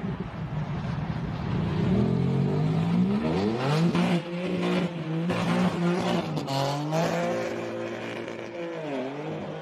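A BMW sedan's engine revving hard as the car accelerates on a wet road, its pitch climbing in several rising sweeps, with a brief drop and climb again near the end.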